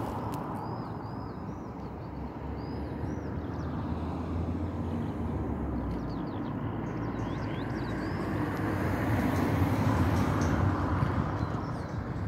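Open-field outdoor ambience: a steady low rush that swells to its loudest about three-quarters of the way through, then eases. Faint short high chirps come in a few times in the first three seconds and again around the middle.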